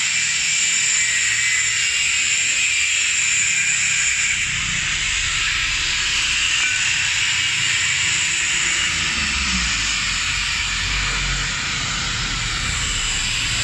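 A steady, loud hiss with a low rumble underneath, running without a break.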